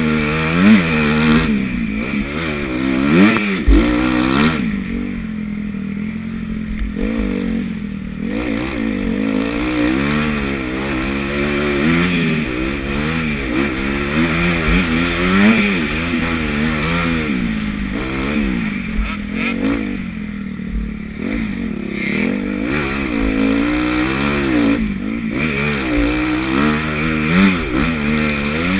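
Honda CRF250 four-stroke motocross bike engine revving up and falling back over and over as the rider works the throttle and gears around the track, heard from the rider's helmet, with an occasional low thump.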